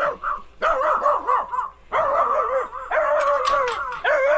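A dog whining and yipping in several runs of high, wavering cries that bend up and down in pitch, with short breaks between them.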